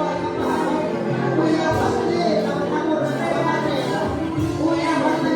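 Church worship music playing, with held bass notes that change every second or two under the other instruments.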